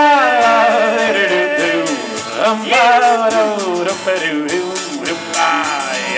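A band playing live: a voice singing with sliding, bending pitch over held instrumental notes and strummed guitar.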